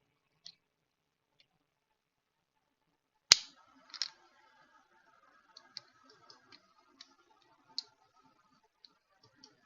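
Quiet room tone broken by one sharp click about three seconds in, then a scattering of faint light clicks: computer mouse clicks while working through setup options.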